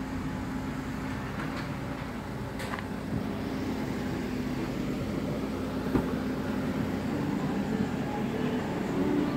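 Perodua Myvi's engine idling steadily, a low even hum, with a single sharp click about six seconds in.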